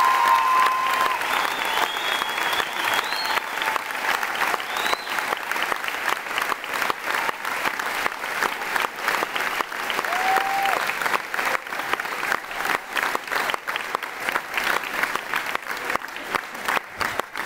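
Audience applauding, a dense steady clapping, with a few calls and whoops rising over it in the first few seconds.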